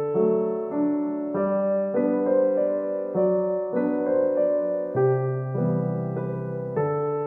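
Background piano music: a gentle melody over chords, with notes changing about every half second.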